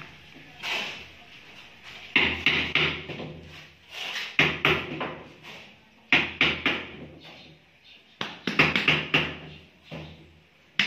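Hands knocking on a large ceramic floor tile just laid on mortar, bedding it level. There are four bursts of several quick knocks, about two seconds apart.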